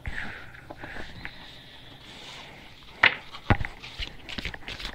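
A deck of tarot cards being handled: a soft sliding rustle, then a few sharp snaps and taps of the cards from about three seconds in.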